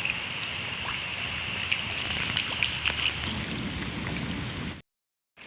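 Steady rain falling, a dense even hiss with scattered drop ticks, that cuts off suddenly near the end.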